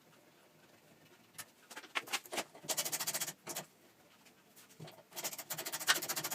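Ratchet wrench clicking in short rapid bursts as the bolts holding the snowblower's bottom plate are backed out, with a few single metallic clicks between the bursts.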